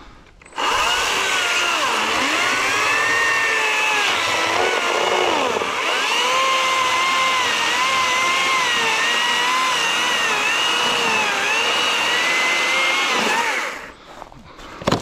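Stihl MSA 120 C battery-powered electric chainsaw cutting down through a log. The motor starts about half a second in and runs steadily, its pitch dipping and wavering as the chain bites under load. It stops near the end as the cut goes through.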